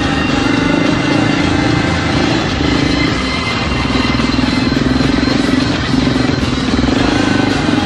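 Dual-sport motorcycle engine running steadily while riding off-road.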